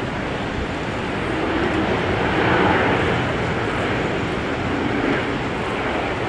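Jet airliner's engines heard as a steady broad rushing noise that swells to its loudest about two and a half seconds in, then eases a little.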